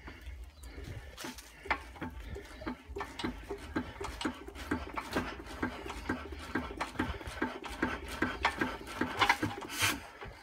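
Single-cylinder Imperial Super Diesel hit-and-miss engine being turned over by hand for a start: a rapid, rhythmic mechanical clicking and clattering, loudest near the end.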